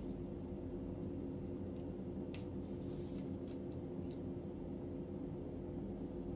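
Charred skin being peeled off a roasted eggplant by hand, giving a few faint brief crackles about two to three and a half seconds in, over a steady low hum.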